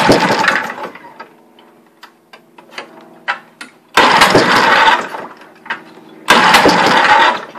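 Sears Ted Williams 7.5 hp outboard with a Tecumseh two-stroke powerhead being pull-started three times, each pull a loud rush about a second long, without the motor staying running. It has been run out of gas.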